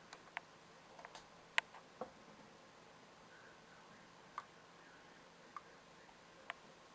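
Faint, scattered single clicks from the buttons of a black IBM Model M13 keyboard with a built-in mouse nub, pressed one at a time with irregular gaps, the loudest about a second and a half in.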